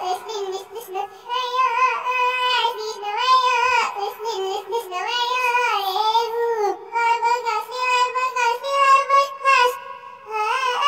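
A child singing a high melody in held notes with a wavering vibrato, broken by short pauses.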